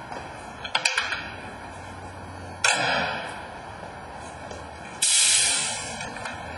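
A couple of sharp clicks, then two sudden bursts of hissing about two and a half seconds apart, each fading away over about a second; the second is louder and higher.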